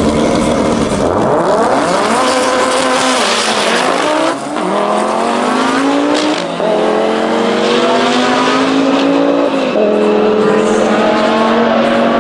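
Mk3 VW Golf's turbocharged Volvo 2.3 five-cylinder engine at full throttle on a quarter-mile drag run. It launches about a second in, and its pitch climbs through each gear with a brief dip at every shift, the clearest about four and a half and six and a half seconds in, with another near ten seconds.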